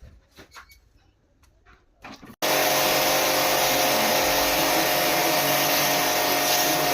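A few light clicks and knocks, then a jet pump (portable pressure washer used to clean the air conditioner) switches on abruptly about two and a half seconds in and runs steadily: a constant motor tone over loud hiss.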